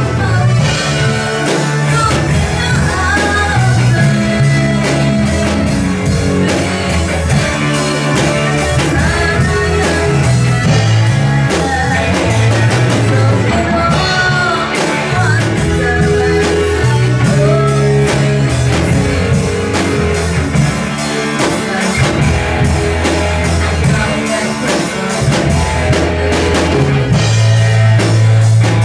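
A woman sings a song into a microphone, backed by a live band with a drum kit and a low bass line.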